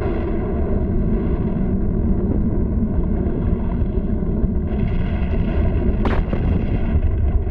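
Steady deep rumbling of an erupting volcano, a cartoon sound effect on an old soundtrack, with a sharp crack about six seconds in.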